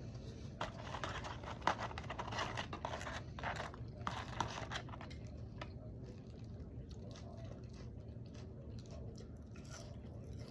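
Close-up eating sounds from a salad: crunchy chewing and crinkling, in clusters of short crackles over the first five seconds, then quieter.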